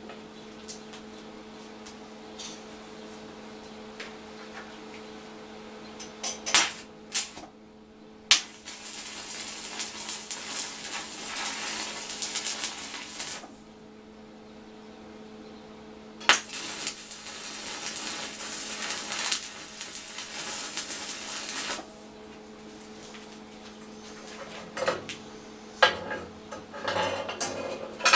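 Stick (arc) welding of steel rod: the arc crackles in two runs of about five seconds each, after a few sharp taps. Near the end, loose steel pieces clink as they are handled, and a steady electrical hum runs underneath.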